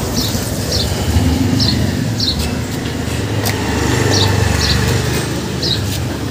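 A steady low mechanical rumble, with a small bird chirping short high notes over it every half second to a second.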